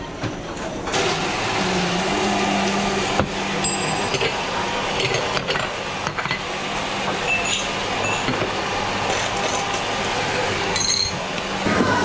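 Coffee-bar machinery running steadily, starting abruptly about a second in and cutting off near the end, with a low steady hum under it and cups and saucers clinking.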